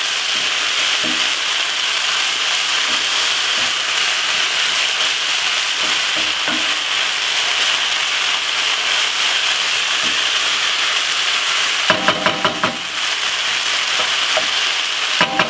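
Minced beef sizzling steadily as it browns in a frying pan, stirred with a wooden spoon. A short run of clatters comes about twelve seconds in, and another near the end.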